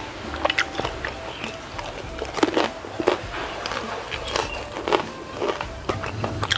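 Close-miked crunching and chewing of fried udang rambutan, shrimp wrapped in crisp fried noodle strands, with irregular sharp crackles as the crust breaks up.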